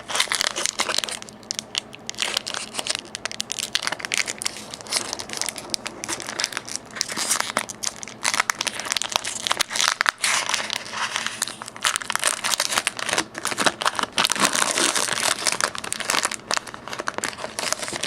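Foil wrapper of a Pokemon trading card booster pack crinkling and crackling as it is torn open and handled, a continuous run of sharp crackles.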